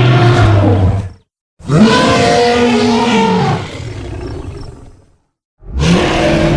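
Tyrannosaurus rex roar sound effects: three separate loud roars cut apart by short gaps of silence. The middle roar is the longest and trails off into a quieter rumble.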